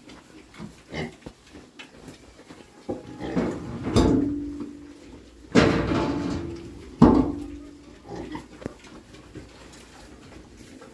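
Pigs calling at a suckling sow: three loud calls in the middle, about a second and a half apart, each starting sharply and fading away, with softer short grunts before and after.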